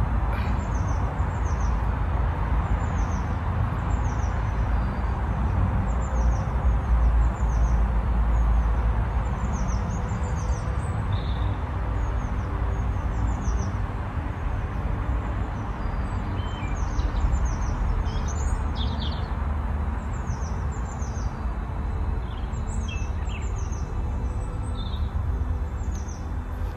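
Garden birds chirping again and again, short high notes that drop in pitch, over a steady low outdoor rumble.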